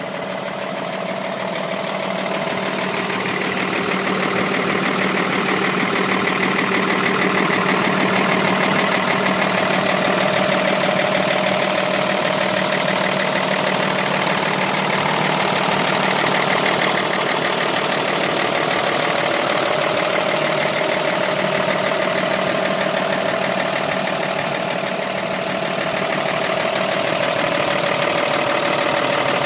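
Hino 268 medium-duty truck's diesel engine running at a steady idle.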